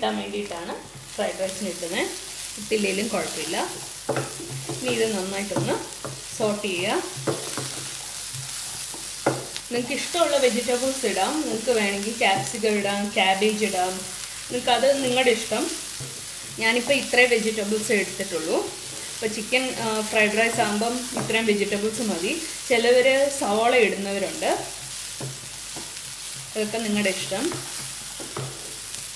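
Diced carrot, beans and green chilli sizzling in oil in a nonstick frying pan, stirred with a wooden spatula in repeated scraping strokes with short pauses between them.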